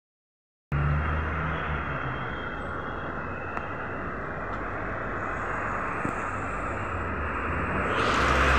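After a brief dropout at the start, a Volgabus-5270.E0 electric city bus moving close by, heard as a steady low hum with road noise. It grows louder near the end as the bus moves off past.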